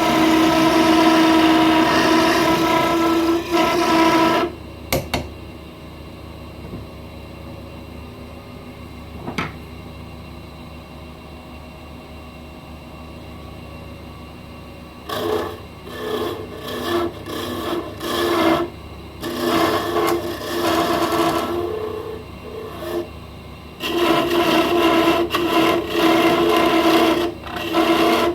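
Wood lathe turning a plum-wood pen blank, with a rasping contact against the spinning wood for the first few seconds, in short stretches from about halfway, and steadily again near the end. In between, the lathe runs alone with a quiet hum and a couple of clicks.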